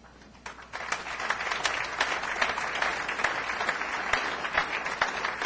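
Audience applauding, the clapping building up within the first second and then going on steadily.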